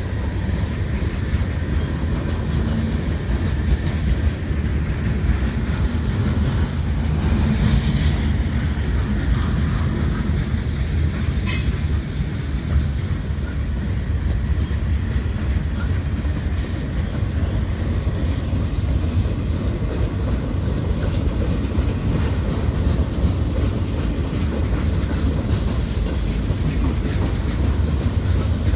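Mixed freight train rolling past: a steady heavy rumble of wheels on rail with clickety-clack over the joints. There is a brief wheel screech about eight seconds in and a single sharp knock a few seconds later.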